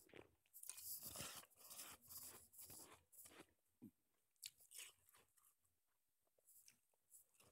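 Shaved snowball ice crunched softly between the teeth, close to a wired earbud microphone: a dense run of crunches for about three seconds, then scattered single crunches.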